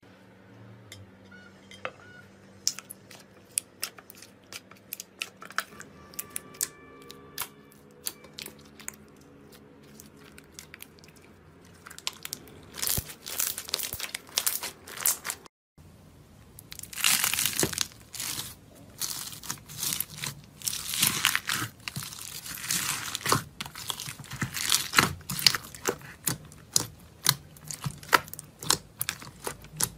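Hands squeezing, poking and pressing slime in a tub, making rapid sticky crackles and pops. The crackling gets much louder about halfway through, with a brief silent break.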